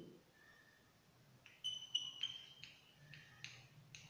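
Chalk writing on a blackboard: a run of short taps and brief high squeaks, starting about a second and a half in.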